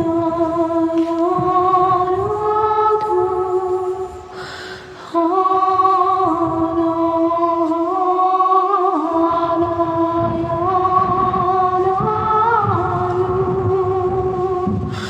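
Wordless singing voice holding long, slow notes that step up and down in pitch, with a short breath about four and a half seconds in.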